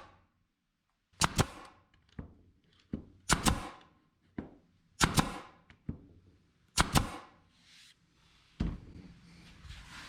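Pneumatic nail gun firing repeatedly into wood, about six shots roughly every one and a half to two seconds, each a quick double crack.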